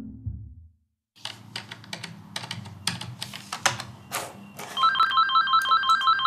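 Telephone ringing with a rapid, repeating two-tone electronic warble that starts near the end, after a run of light clicks and knocks. The tail of a song fades out at the very start.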